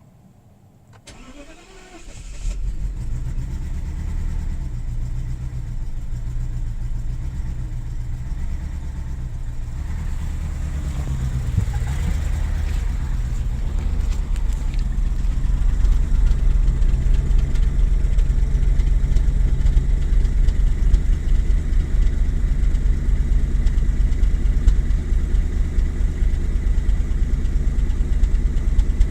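BMW 735i E65's 3.6-litre V8 cold-started: a second or so of cranking, then it catches about two and a half seconds in and runs on at idle, growing louder around twelve and sixteen seconds in. The owner describes the cold-start running as misfiring.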